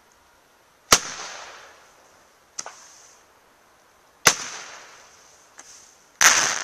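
Panda Typhoon eight-shot Roman candle firing: two sharp bangs, about a second in and about four seconds in, each followed by a fading hiss, with lighter pops between them. Near the end comes a louder, longer burst.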